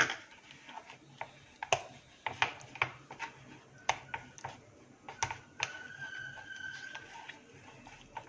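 Scattered light clicks and taps of fingers and fish pieces against an aluminium pan as raw hilsa fish is mixed by hand in a wet mustard-spice paste. A little past the middle a thin, steady high tone sounds for a second or two.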